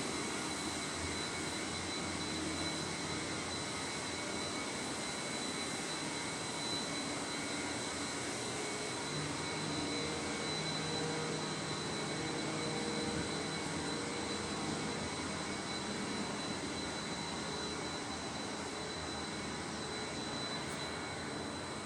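Steady mechanical roar of industrial plant machinery, with a thin high whine over it.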